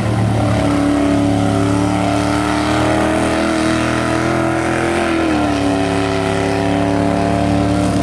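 Lifted mud-bog pickup's engine run hard at high revs, a loud steady drone, while its oversized tyres spin through a mud pit; the pitch eases down slightly about five seconds in.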